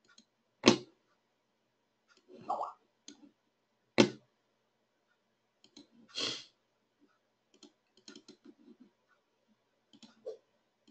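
Computer mouse clicking: a few sharp, widely spaced single clicks, the loudest about a second in and about four seconds in, with a couple of short soft rustles and faint ticks between.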